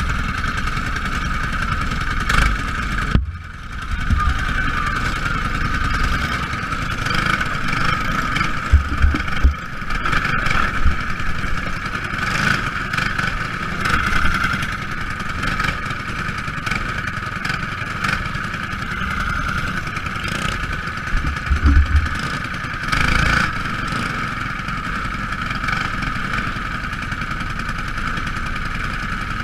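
Racing engines from a field of small race cars running continuously around the track in a steady, high, buzzing drone, with occasional low rumbles and thumps.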